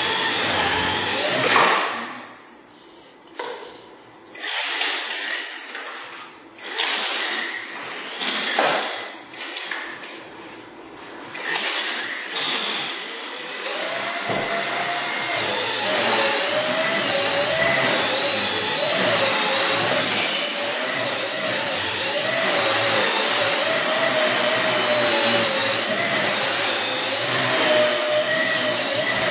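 Blade Nano CP X micro RC helicopter's electric motors and rotors whining. The whine drops away about two seconds in, returns in several short bursts, then holds steady from about twelve seconds on, its pitch wavering up and down as the rotor speed changes.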